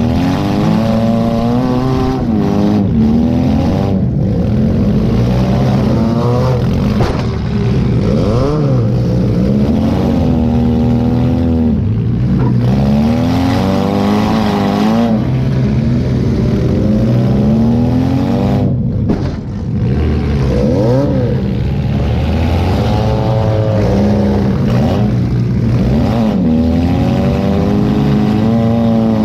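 Demolition derby car's engine revving up and falling back over and over as the car is driven hard, heard from inside the car.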